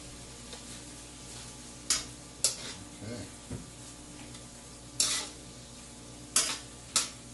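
Spatula scraping and turning fried rice in a wok over a low, steady sizzle, with five short scrapes against the pan.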